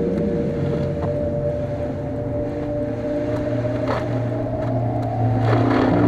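A car driving on a slushy, snow-covered highway, heard from inside the cabin: steady engine and tyre noise, with a couple of brief clicks about four and five and a half seconds in.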